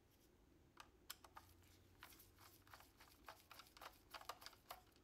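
Faint, irregular small clicks and ticks of a small screwdriver working the screws inside the plastic ball cup of an Elecom HUGE trackball.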